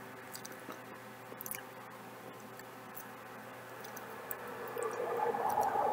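A person chewing food, with small wet mouth clicks, over a steady faint hum; a louder pitched sound comes in about five seconds in.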